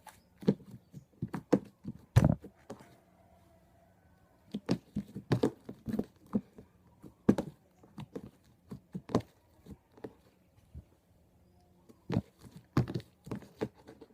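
Butter slime being worked with activator: irregular sticky squelches, clicks and small pops, with two short pauses.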